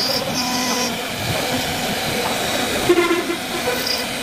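CNC wood-carving router running as it cuts a wooden door panel: a steady machine hiss with several held tones, a higher whine that comes and goes, and a brief knock about three seconds in.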